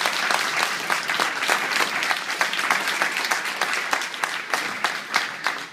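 Audience applauding in a hall: dense, steady clapping from many hands, fading slightly toward the end.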